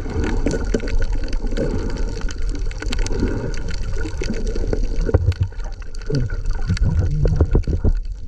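Underwater sound heard by a camera held below the surface: a dense rush of water, gurgling and bubbling, with scattered sharp clicks and a run of low knocks from about five seconds in as the speared fish and gear are handled.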